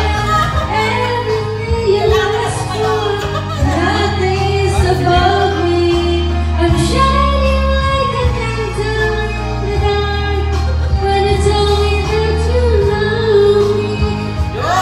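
A woman singing karaoke into a handheld microphone over a videoke backing track: her amplified voice carries a slow melody above a steady bass.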